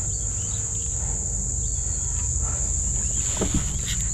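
Steady high-pitched drone of an insect chorus, over a low steady rumble.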